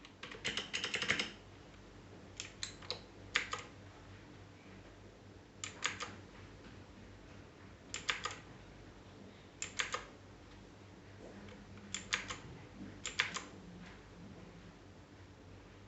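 Keys of a Royal Kludge RK61 mechanical keyboard clicking in seven short clusters of a few presses each, spaced about two seconds apart.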